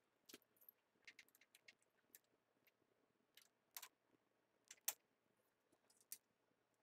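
Near silence broken by faint, scattered clicks and clinks of hand tools and bolts being handled, with slightly louder knocks a little before four seconds, near five seconds and near six seconds.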